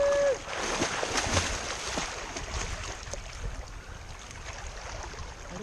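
River water rushing and splashing around a raft, with scattered knocks and splashes. A held call from a person ends in the first moment.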